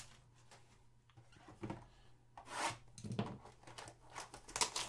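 Trading cards and a foil pack wrapper being handled: a few faint, scattered rustles and clicks, more of them near the end.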